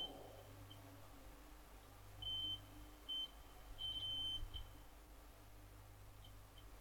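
A DM25 digital multimeter's continuity beeper gives short, irregular beeps of one high tone, some brief and one about half a second long, as the probes rest across a poor solder joint. The broken, unsteady beep is the sign of a bad connection, which is where the snubbing capacitor sits.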